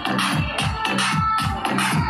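Electronic music with a fast, steady bass-drum beat, about four beats a second.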